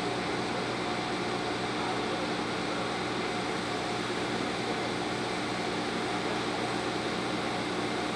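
TIG welding arc running on heavy-wall carbon steel pipe: a steady, even hiss with a constant hum underneath.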